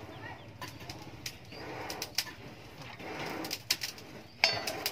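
Scattered sharp clinks and knocks as a long, hand-forged steel blade is handled, the loudest near the end.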